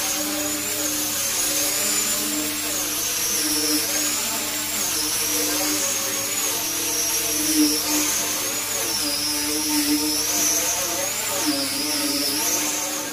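Hand-held angle grinder fitted with a sanding disc, running continuously as it sands carved teak wood. Its high whine wavers up and down in pitch as it is pressed into and moved across the carving.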